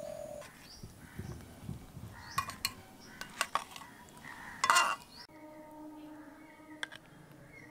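Metal cutlery and dishes clinking: a few sharp clinks, with one louder clatter about five seconds in. The background then cuts off abruptly to a low steady hum.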